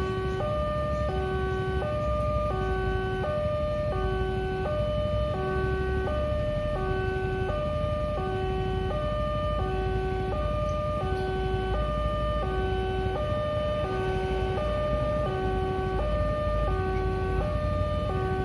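Indonesian railway level-crossing warning alarm sounding its melodious two-tone signal: a low tone and a higher tone alternating steadily, about one pair every second and a half, the warning that a train is approaching the crossing.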